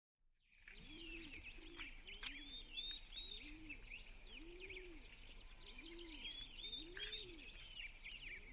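Faint morning birdsong: small birds chirping and twittering, with a dove cooing in a run of low, repeated notes underneath.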